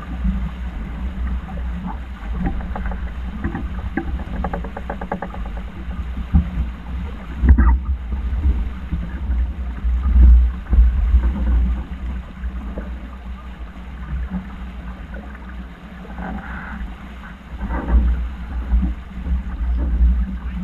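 Wind buffeting the microphone on a racing sailboat, with the rush of water. The low rumble swells and eases unevenly, and there are a few louder knocks in the middle.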